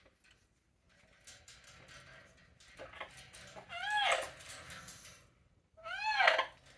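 Pet parrot making an odd call twice, each call rising and then falling in pitch, while it shakes a toy; light rattling and clicking of the toy comes before the first call.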